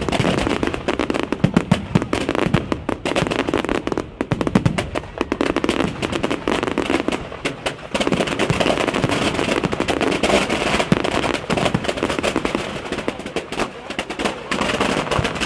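A fireworks display: aerial shells and low-level effects bursting together in a rapid, continuous run of pops and bangs, many a second, with brief lulls twice.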